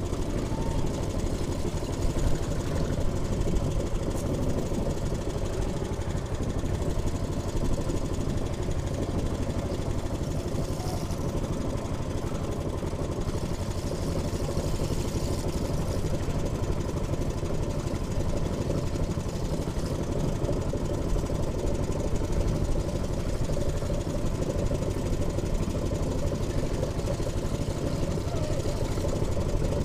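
A small wooden fishing boat's engine running steadily at an even pitch.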